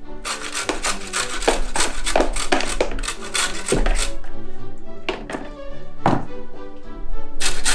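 A carrot being grated by hand on the large holes of a metal box grater: quick scraping strokes, several a second, that thin out around the middle and pick up again near the end. Background music plays underneath.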